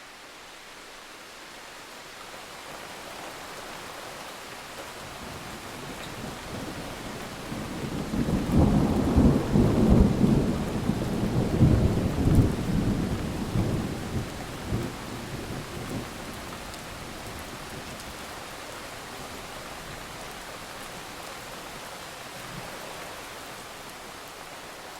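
Thunderstorm: steady rain hiss that builds over the first few seconds, then a long rolling thunder rumble that swells about six seconds in, is loudest around ten seconds in and dies away after about sixteen seconds, leaving the rain.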